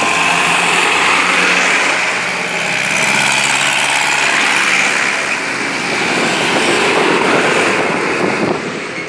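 Tractor engines running as a line of tractors, including a Massey Ferguson 155, drives past one after another, fading a little near the end.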